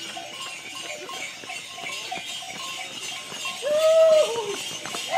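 Bells on a group of running carnival figures jingling and clanking steadily. A loud held call lasts about half a second near the end.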